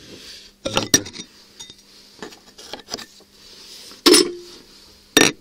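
Metal jew's harps clinking and knocking against each other as they are handled and sorted: a cluster of sharp clinks about a second in, another loud one about four seconds in, and a last one just before the end, with soft handling noise between.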